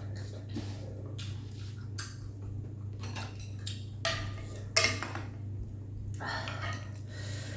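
Eating utensils clinking and scraping against a noodle bowl in short, irregular strokes, the sharpest clink about five seconds in, over a steady low hum.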